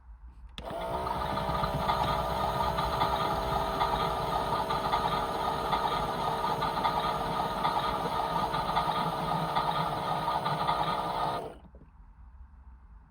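Small electric motor of a toy washing machine spinning up within a second, then running at a steady whine with a rattling hum for about eleven seconds before stopping abruptly.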